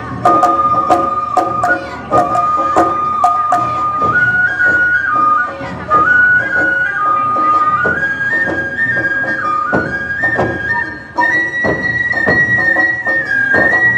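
Awa odori festival music: a shinobue bamboo flute plays the melody over a steady drum beat, with bright strikes, in the manner of the kane hand gong, in the first few seconds. The flute moves to a higher phrase about eleven seconds in.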